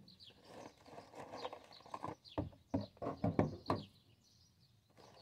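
Rustling and a run of light knocks and clatters as plastic and packaging recycling is handled out of a bag at a street recycling bin, busiest in the middle and easing off near the end.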